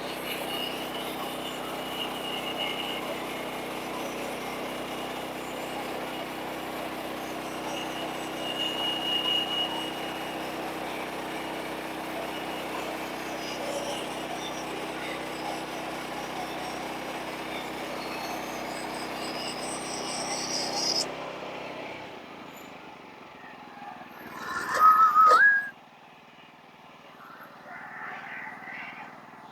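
Sawmill's small gas engine running steadily, then shutting off about three-quarters of the way through. Shortly after it stops comes one brief, loud, high-pitched sound that rises in pitch.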